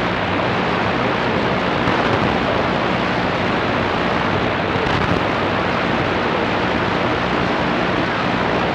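Steady hiss of static from a CB radio receiver, open with no one talking on the channel.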